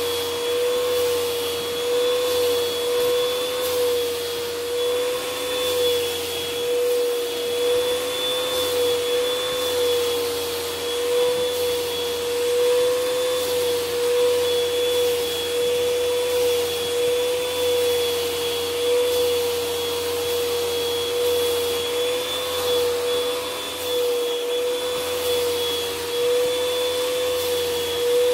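Vacuum cleaner running steadily, its hose wand drawn over a cat's fur to suck up loose hair and fleas: a constant whine over rushing air, wavering slightly in pitch.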